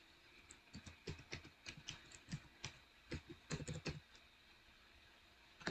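Typing on a computer keyboard: a quick run of light key clicks for about three and a half seconds, then a pause and one louder keystroke near the end.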